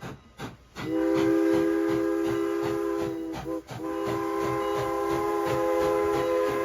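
Locomotive air horn sounding a chord of several tones in two long blasts, with a short break between them just after three seconds in, over the regular clicking of a train's wheels on the rails.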